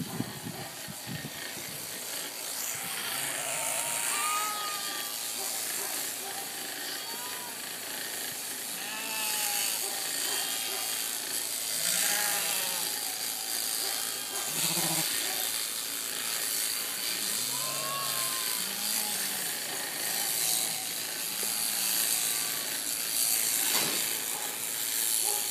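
Sheep bleating at intervals over the steady buzz of electric shearing clippers.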